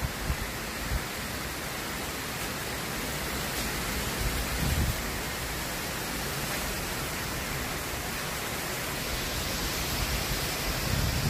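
Tropical thunderstorm rain and wind: a steady, even hiss, broken by a few short low thumps, strongest about four to five seconds in and near the end.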